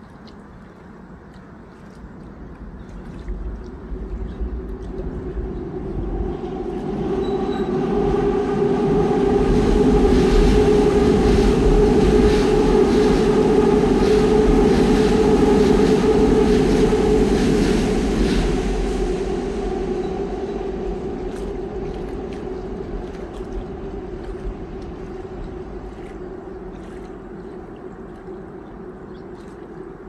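A train passing by: its rumble builds over several seconds, stays loudest for about eight seconds with a steady hum running through it, then fades away slowly.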